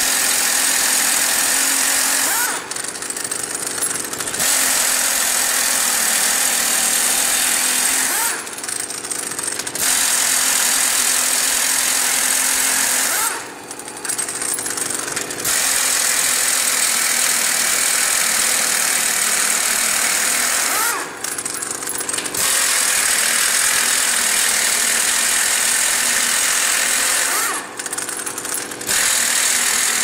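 Pneumatic impact wrench hammering on the lug nuts of a heavy truck's steer wheel. It runs in long bursts of several seconds, with brief pauses between.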